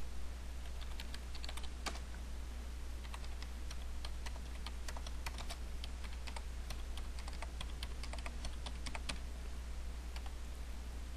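Computer keyboard being typed on, with irregular clusters of key clicks over a steady low hum.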